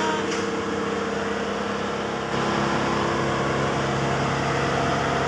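Engine running steadily at a constant speed, getting slightly louder about two seconds in.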